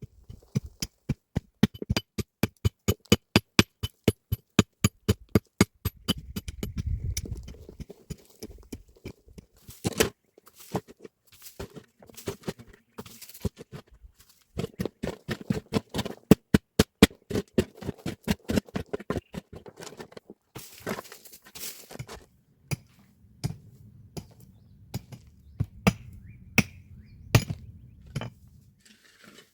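Rapid, regular blows of a hand tool, about three to four a second, in runs separated by pauses with scattered single knocks.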